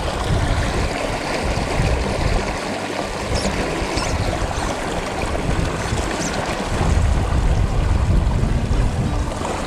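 Shallow, fast river current rushing and splashing right by the microphone, a steady loud hiss of moving water. A low rumble on the microphone builds about seven seconds in.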